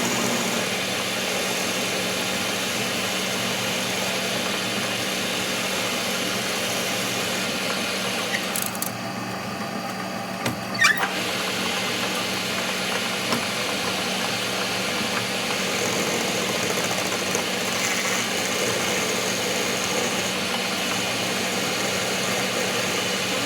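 A machine running steadily with a constant low hum, and one sharp knock about eleven seconds in.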